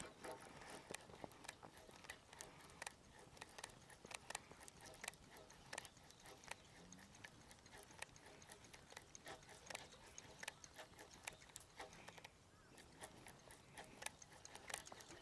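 Faint, irregular clicking and ticking from a baitcasting reel being cranked in short bursts as a stickbait is worked back, with small rod-handling knocks; a brief lull about twelve seconds in.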